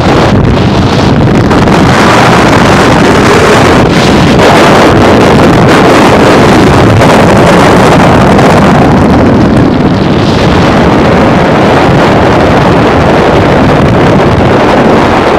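Loud, steady rush of wind and road noise from a car travelling at freeway speed, the wind buffeting the camera microphone.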